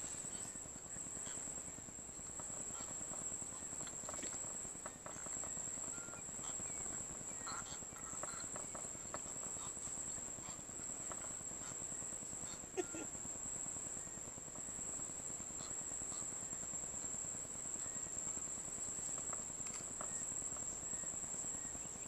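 Insects buzzing in one steady, high-pitched tone, with faint scattered clicks and knocks.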